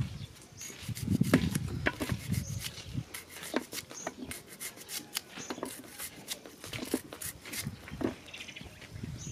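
Serrated knife slicing through a raw red onion held in the hand, a run of short crisp crunching clicks, irregular in spacing. A louder low rumble lasts about a second, about a second in.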